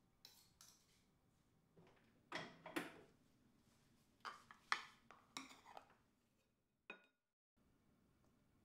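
Serving utensils clinking and scraping against a stainless steel bowl while salad leaves are lifted out onto a plate: several soft, separate clinks with short pauses between them.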